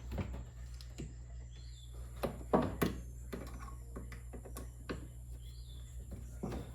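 Light, irregular clicks and taps of the plastic parts of a mini ice maker's housing being handled and fitted together during reassembly, over a steady low hum.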